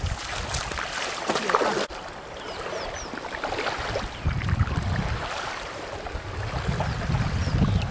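Wind buffeting the microphone in gusts, strongest from about halfway through, over the wash of water lapping at a dam shore, with a few short high chirps.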